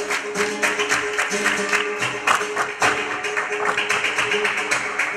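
Flamenco music: guitar with fast, dense percussive strokes over a held note.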